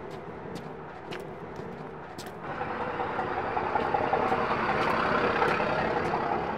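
Street traffic: motor vehicle engines, with a truck engine running close by, getting louder about two and a half seconds in. Before that, quieter road ambience with light, evenly spaced footsteps.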